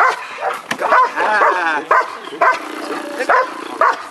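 Dog barking repeatedly, about two barks a second, at a helper in a bite sleeve standing in a hiding blind: the bark-and-hold guard exercise of protection training.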